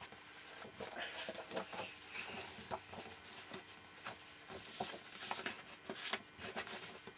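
Pages of a large book being leafed through and the open book handled: faint, irregular paper rustles and soft clicks.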